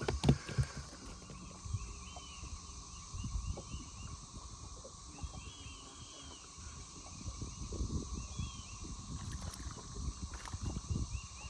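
Outdoor ambience on the water: short bird chirps come in small groups and run over a steady insect drone. Scattered low thumps and knocks of handling in the boat sound throughout, with a few sharper clicks right at the start.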